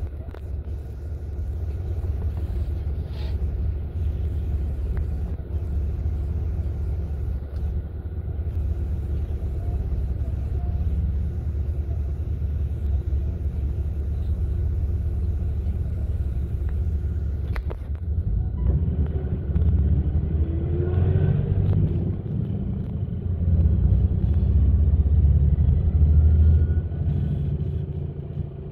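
Steady low rumble of engine and road noise inside a moving bus, growing louder about two-thirds of the way through.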